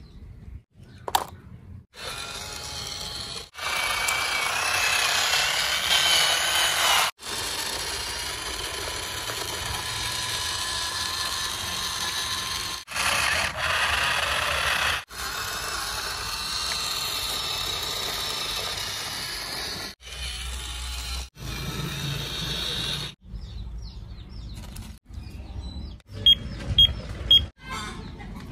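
Small electric motors whirring in a run of short clips that start and stop abruptly. Near the end there are three short high beeps.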